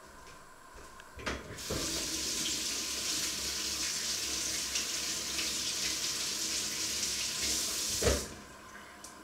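Kitchen tap running into a steel sink for about six and a half seconds while a tomato is rinsed under it. There is a click as it is turned on about a second and a half in, and a thump as it is shut off near the end.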